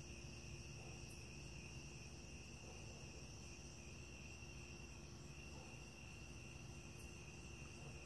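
Faint, steady night chorus of insects: a continuous high-pitched trill that holds without a break.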